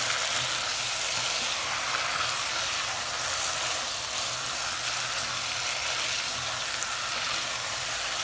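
Chicken and mixed-vegetable curry masala sizzling steadily in hot oil in a pan as the spices fry.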